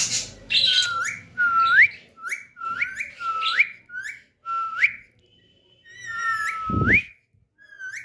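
Ringneck parakeet giving a run of about a dozen short whistled notes, each ending in a sharp upward hook, as its head is stroked. A short low thump comes about seven seconds in.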